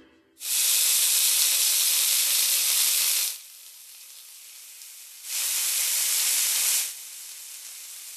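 Meat sizzling as it cooks, in two loud spells of about three seconds and a second and a half, with a quieter steady sizzle between and after.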